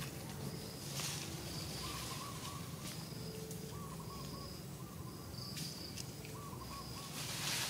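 Outdoor ambience: short high-pitched bird calls repeating every second or so, with a few lower wavering calls, over a steady low hum.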